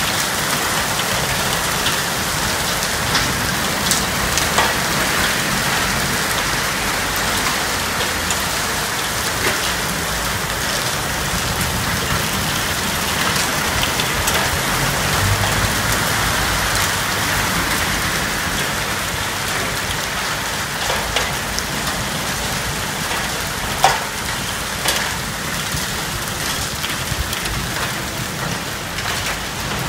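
Heavy thunderstorm rain mixed with hail pelting a street and the surfaces around the balcony: a steady dense hiss with many sharp ticks of stones striking, and one louder knock near the end.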